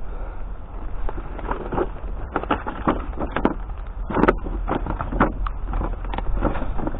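Footsteps on hard ground, about two a second and uneven, over a steady low rumble.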